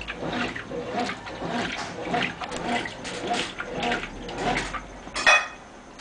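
Brastemp Clean 8 kg top-load washing machine agitating a full drum of water during a rinse, the agitator swishing back and forth about twice a second with a whine that rises and falls on each stroke. A brief, sharp, louder noise comes about five seconds in.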